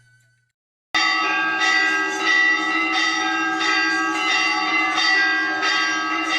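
Bells ringing, starting suddenly about a second in and struck over and over, roughly every two-thirds of a second, with a dense ring that carries between strokes.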